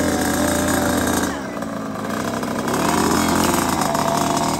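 Engine of a children's mini motocross bike running, its revs dropping a little over a second in and climbing again about three seconds in.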